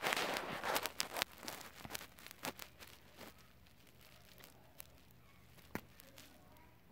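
Handling noise from a handheld phone camera: a brief rustle, then scattered faint clicks and taps over a low room hum.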